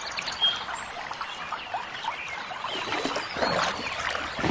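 River water trickling and splashing, louder around three seconds in, with many short chirps from animals over it.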